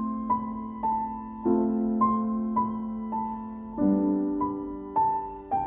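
Background piano music: a slow melody of single notes over held chords, which change every couple of seconds.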